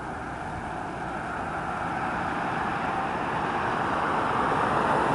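A road vehicle approaching: its tyre and engine noise swells steadily louder.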